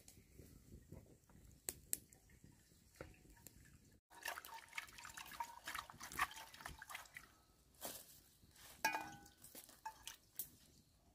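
Hands swishing and splashing in water in a metal cooking pot, with small drips and splashes. A short ringing tone comes late on.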